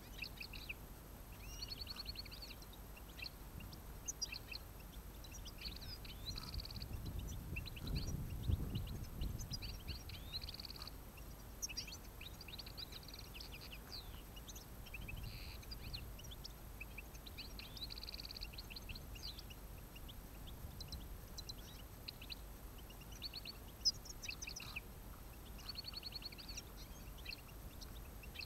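European goldfinches singing and twittering in quick, chirping phrases, on and off throughout. A brief low rumble comes about eight seconds in.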